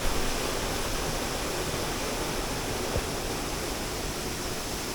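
Waterfall rushing: a steady, full roar of falling water.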